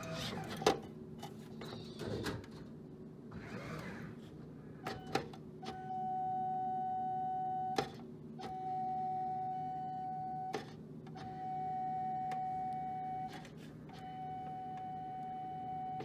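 Vending machine with a grabber-arm delivery system beeping: four long, even beeps of about two seconds each, starting about six seconds in, over the machine's steady low hum. Before the beeps there are a few sharp clicks as the delivery door is handled. The beeping is the machine's alarm at its delivery door being held, which leads to a homing failure.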